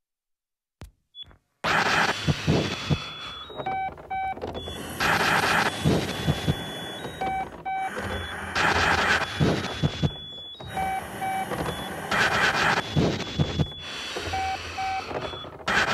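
Electronic runway soundtrack that starts abruptly about a second and a half in: short beeping tones, often in pairs, over repeated bursts of noise.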